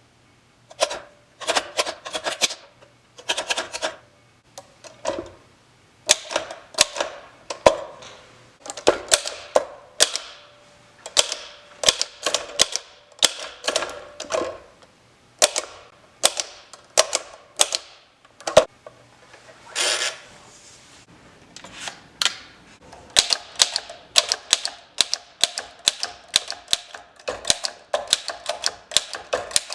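1915 French Typo manual typewriter being typed on: sharp keystroke clacks come in quick runs with short pauses between them, and there is one longer sound about twenty seconds in.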